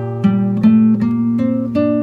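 Background music of a plucked acoustic guitar, single notes picked about two or three a second over a ringing low note.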